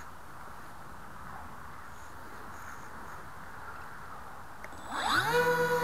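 Faint steady background hiss. About five seconds in, the Dynam PBY Catalina model's twin electric motors spool up with a quickly rising whine that settles into a steady high whine as the throttle is opened.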